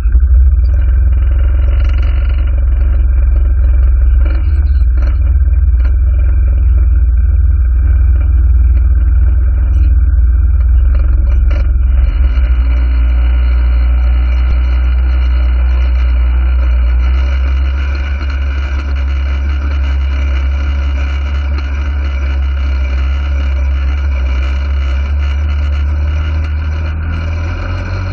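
Off-road vehicle's engine running steadily under way on sand trails, heard up close from its front rack, with heavy low rumble; it gets a little quieter about two-thirds of the way through.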